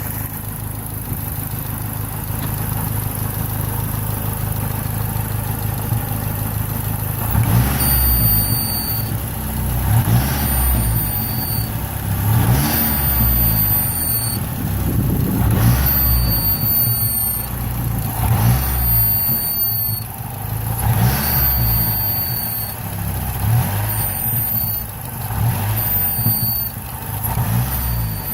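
Car engine idling, then revved about nine times, every two to three seconds, starting about a quarter of the way in. Each rev brings a high-pitched whistle at one steady pitch that stops as the revs fall. The owner suspects a vacuum leak and has ruled out the alternator.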